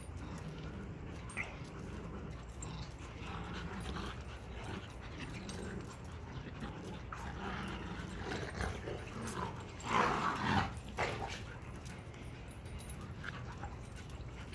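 Dogs vocalizing as they play, a Chihuahua and a puppy, with the loudest noises about ten seconds in, over a steady low hum.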